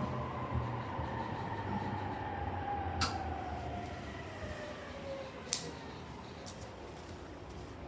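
E231-series electric train braking to a stop, heard from inside the carriage: a whine from the traction motors and inverter falling steadily in pitch over a low running rumble as the train slows. Two sharp clicks about three and five and a half seconds in.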